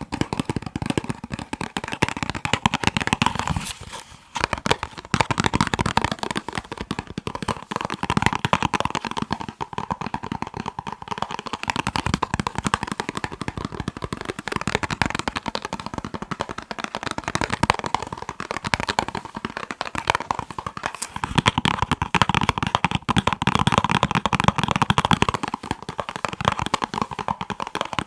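Fingers tapping fast and continuously on a box, a dense run of quick clicks and taps with a brief pause about four seconds in. The tapping turns fuller and lower about three quarters of the way through.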